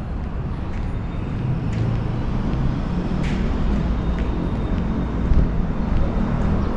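Steady low rumble of urban road traffic, with a few faint irregular clicks.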